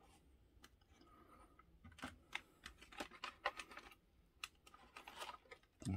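Faint, irregular clicks and taps of plastic action-figure packaging being handled and opened.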